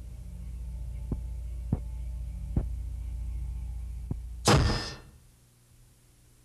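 A low steady hum with sharp clicks at irregular intervals, then a loud burst of noise lasting under half a second about four and a half seconds in, after which the hum cuts off.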